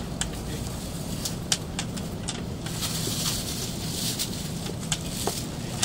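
Busy train-platform ambience: a steady low hum with scattered footsteps and sharp clicks, and about halfway through the hiss of a rolling suitcase's wheels going past.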